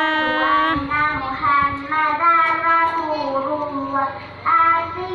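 A child singing in long held, gently sliding notes, phrase after phrase, with a short break near the end.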